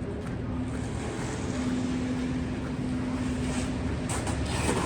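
A motor running steadily: a low, even hum over a rushing noise, the hum stopping about four seconds in.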